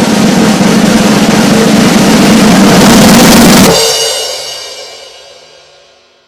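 Snare drum roll swelling slightly louder, then cut off about three and a half seconds in by a final crash, likely a cymbal, that rings on and fades away over the last couple of seconds.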